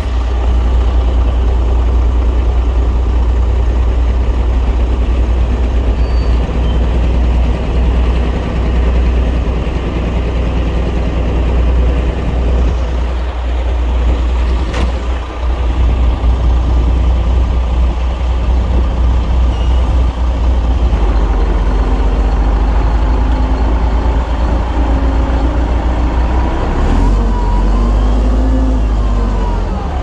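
Heavy diesel earthmoving machinery running, a steady deep engine drone throughout; near the end the engine pitch rises and falls.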